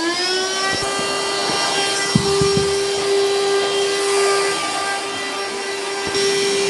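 Cordless handheld vacuum cleaner's motor running with a steady whine, its pitch settling as it reaches full speed right at the start, with a few light knocks about two seconds in.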